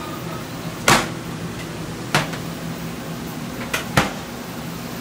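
Sheet-metal baking trays clanking as they are handled and set down: four sharp knocks, one about a second in, one about two seconds in and a quick pair near the end. A steady machine hum runs underneath.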